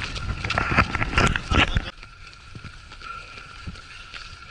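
Wind buffeting the microphone of a camera carried by a runner, mixed with footfalls on a gravel path; about two seconds in it cuts abruptly to a quieter stretch with only light footsteps.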